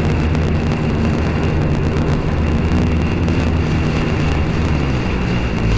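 Sea-Doo personal watercraft running steadily at speed across choppy water: an even engine drone under the rushing noise of wind and spray.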